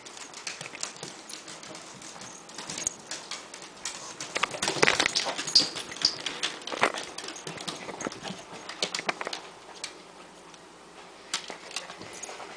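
A crinkly plastic bag of bacon-flavoured dog treats being handled, giving scattered clicks and crackles that come thickest a few seconds in and thin out afterwards.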